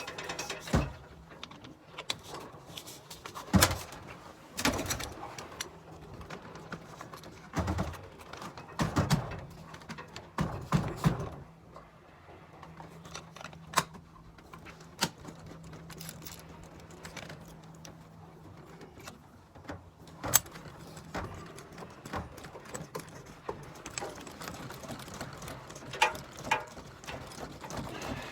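Scattered metallic clicks, taps and knocks of hand tools and fittings being handled during air-conditioner installation work, with a faint steady hum through the middle.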